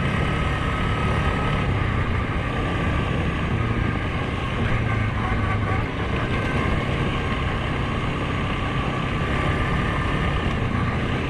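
Suzuki KingQuad 750 ATV's single-cylinder engine running steadily under way on a dirt trail, a constant low drone with no big changes in throttle.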